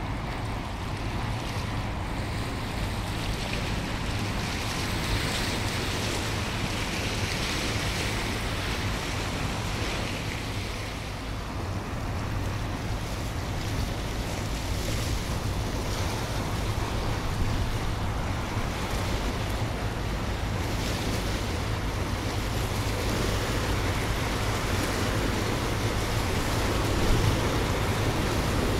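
Waterside ambience of passing cargo ships: wind buffeting the microphone and water washing, over a low steady hum from the ships' engines.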